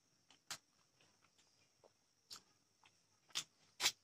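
Eating sounds of a person eating rice by hand: a few short, sharp clicks and smacks, the loudest two close together in the last second.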